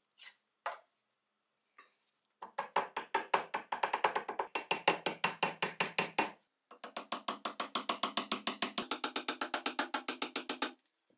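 Rapid, evenly spaced tapping, about ten strikes a second, in two runs of about four seconds with a short break between.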